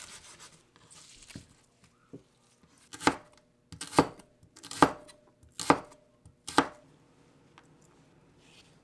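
Kitchen knife chopping on a wooden cutting board: soft slicing through a bunch of chives at first, then five sharp strokes a little under a second apart cutting carrot sticks.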